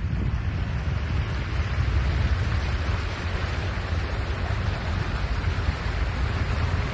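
Steady rushing of fast-flowing floodwater, with a heavy low rumble of wind buffeting the microphone.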